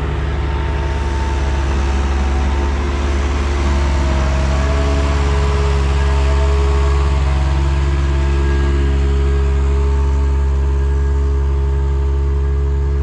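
John Deere 6140M tractor engine running steadily under load while pulling a slurry tanker, its pitch rising a little a few seconds in.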